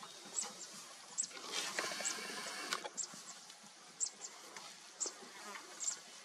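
Open-country wildlife ambience: short high chirps repeating roughly once a second, with a brief rustling hiss about a second and a half in and a sharp click near its end.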